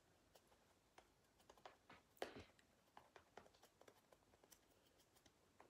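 Near silence with a scatter of faint, irregular soft taps from a makeup sponge being dabbed against the skin of the neck. The loudest tap comes about two seconds in.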